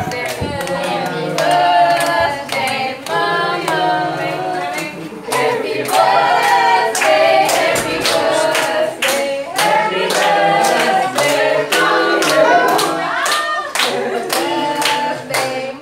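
A group of people singing together in unison, with hands clapping along in a steady beat that grows denser in the second half.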